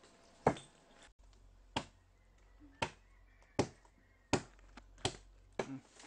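Machete chopping into the hard wood of a Siamese cassia (Senna siamea) branch: about seven sharp blows, spaced a little under a second apart.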